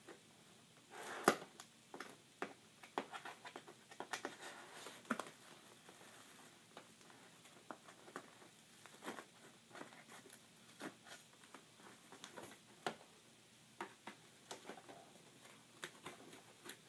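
Toy packaging being handled and pulled at: scattered faint clicks and rustles, with one sharp click about a second in.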